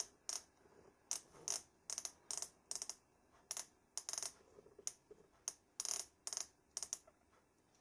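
Outside micrometer being closed onto a steel engine shaft: faint, short metallic clicks from the thimble's ratchet and the tool against the shaft, coming in small irregular clusters as the measurement is taken.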